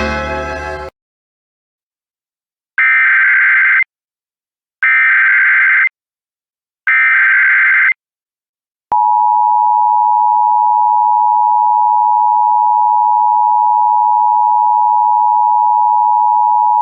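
Emergency Alert System broadcast tones. First come three one-second bursts of SAME header data, a harsh warbling screech. After a short pause the steady two-tone EAS attention signal sounds for about eight seconds, marking the start of an alert message.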